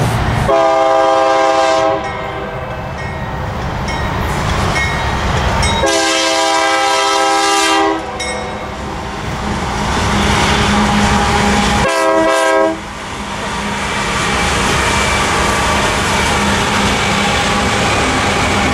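BNSF freight diesel locomotives sounding a chord horn three times, two long blasts and then a short one about twelve seconds in, over the sound of the engines and a double-stack container train rolling past.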